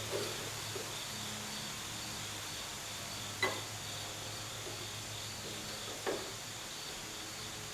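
Three sharp metallic clicks of hand tools on the car's chassis fittings, the loudest about halfway through, over a steady low hum and a faint, rapidly pulsing high chirp.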